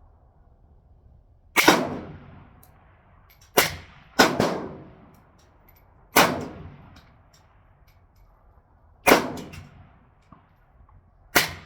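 Six single shots from a suppressed PTR rifle in .308 Winchester, fired one at a time at uneven intervals, each a sharp crack with a short echoing tail.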